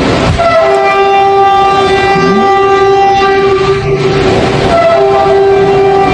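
Loud, sustained trumpet-like horn tones, several pitches held together as one chord, much like a multi-chime train horn. They break off briefly about four seconds in and then resume. This is the so-called 'sky trumpet' sound of unexplained origin.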